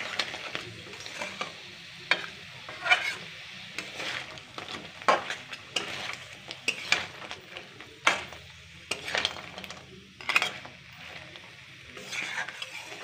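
Slotted steel spatula scraping and clinking against a metal kadai as crab pieces are stirred through a thick fried masala, in irregular strokes about once a second. A faint sizzle of the frying runs underneath.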